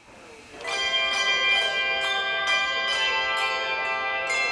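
A team of handbell ringers playing a tune on handbells. Clear ringing notes overlap and sustain, with new strikes about twice a second, starting about half a second in.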